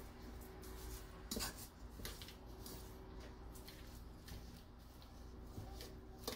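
Faint scraping and clinking of a metal fork against a stainless steel mixing bowl as hard-boiled egg yolks are mashed together with mayonnaise, with a handful of sharper clinks scattered through, over a low steady hum.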